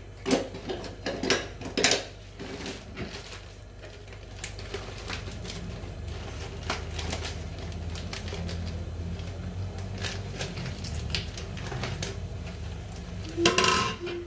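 Dishes and utensils clattering and clinking on a kitchen counter while noodles are being prepared. Knocks come thick in the first two seconds, then scattered, with one louder clink near the end. A steady low hum runs underneath.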